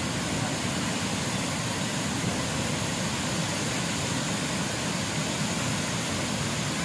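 Water pouring over a dam spillway and churning through the foaming rapids below it: a steady, even rushing.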